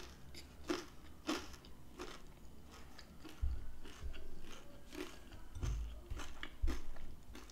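Close-up chewing of a mouthful of taco empanada, a soft crunch about every half second to second, with a couple of low dull thumps along the way.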